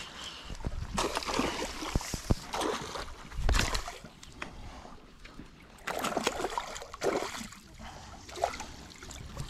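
Irregular water splashing and sloshing as a small hooked pike thrashes at the surface while it is brought in on a spinning line.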